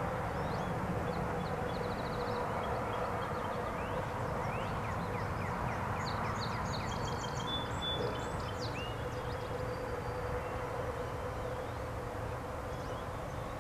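Birds calling: quick series of high notes and short rising whistles, busiest in the first half and sparse later, over a steady low rumble with a faint hum.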